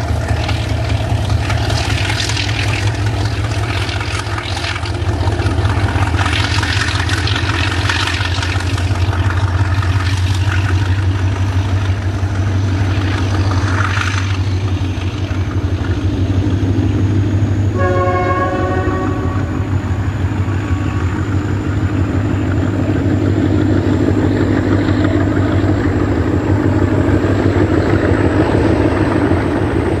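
Diesel locomotive engine running steadily as it hauls a container freight train past, with the wagons clattering over the rails. A little past halfway, a horn sounds for about two seconds.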